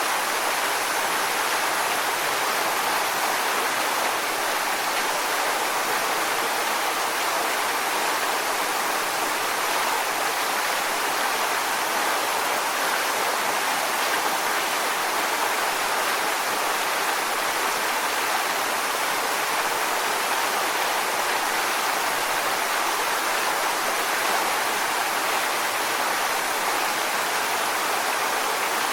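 Waterfall: a steady, even rush of falling water splashing onto rocks, with no change in level.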